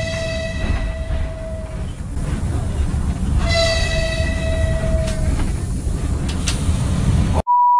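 A train horn sounds twice, a held blast that stops about two seconds in and another of about two seconds in the middle, over the steady low rumble of a moving train. Near the end the sound cuts out abruptly and a steady electronic beep begins.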